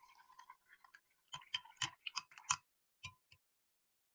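Metal teaspoon stirring yeast into liquid in a glass measuring jug: soft scraping at first, then a quick run of sharp clinks against the glass, and two last clinks.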